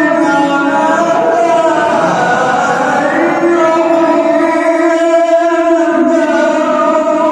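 A man's voice chanting Quran recitation in the melodic style, drawing out long held notes that bend and glide slowly in pitch.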